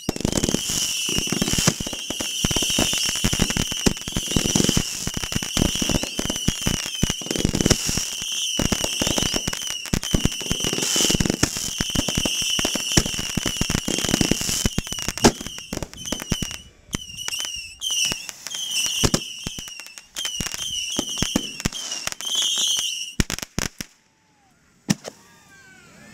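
Fireworks display at close range: a dense, rapid barrage of bangs and crackles with a high, wavering whistling running over them. It breaks off abruptly about 24 seconds in, leaving near quiet.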